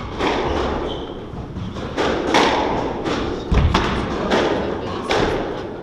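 Sharp thuds and smacks on a squash court, about six or seven spread a second or so apart, with the strongest, deepest thud about three and a half seconds in. They come from the squash ball and the players' shoes on the wooden court floor, and each rings briefly off the walls.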